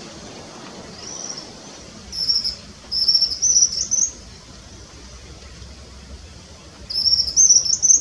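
White-throated kingbird singing: three bursts of high, stuttering twittered notes that rise in pitch, about two seconds in, from three to four seconds in, and again near the end.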